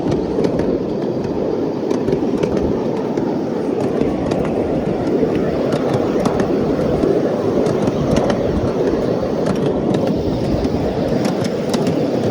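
A miniature ride-on train rolling along its track, heard from on board: a steady rumbling rattle of the wheels on the rails, sprinkled with many small clicks and clacks.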